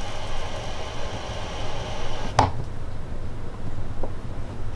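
Thetford Aqua-Magic Residence RV toilet flushing: water hisses through the flush valve into the bowl while the pedal is held, then cuts off with a sharp click a little over two seconds in as the pedal is released. A low steady hum continues underneath.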